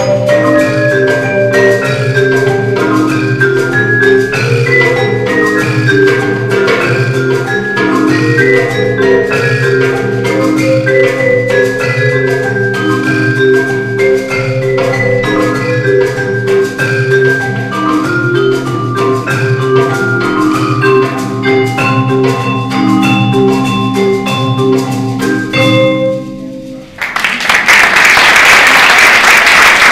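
Mallet-percussion ensemble of marimba and vibraphone playing many quick overlapping notes over a steady low pattern; the piece ends about 27 seconds in and the audience breaks into applause.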